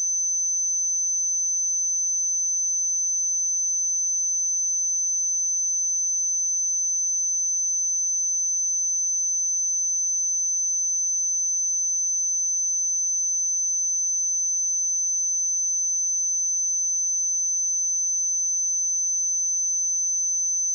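A single steady, high-pitched pure tone, held at one pitch and one level without any change.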